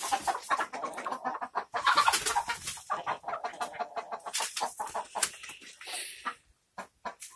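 Several chickens clucking in a quick jumble of short calls, with wing flapping, as hens squabble among themselves; loudest about two seconds in, with a brief lull near the end.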